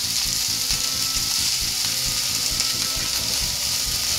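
Pointed gourd and potato pieces frying in oil in a pan, giving a steady sizzle.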